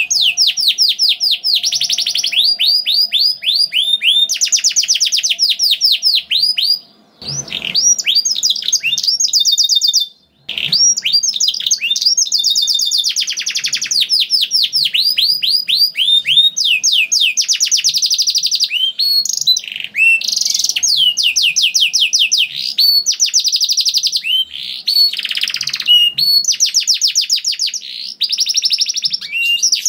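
Domestic canary singing a long, near-continuous song of fast rolling trills, changing to a new phrase every second or two. There are short breaks about seven and ten seconds in.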